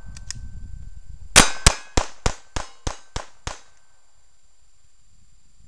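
GSG 1911-22 pistol (a .22 LR 1911) fired in a rapid string of eight shots, about three a second, each a sharp crack with a short ring-out. The first two shots are the loudest.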